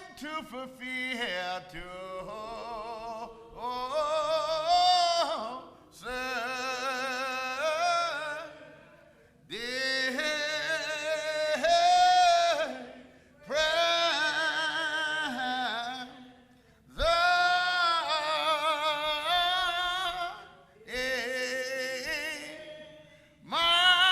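Singing: a voice holds long notes with heavy vibrato, in phrases of about two seconds broken by short pauses for breath.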